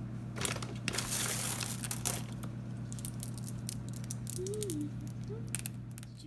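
Skittles candies being handled, with light rattling, crinkling and scattered small clicks, the busiest stretch about a second in. A steady low electrical hum runs underneath.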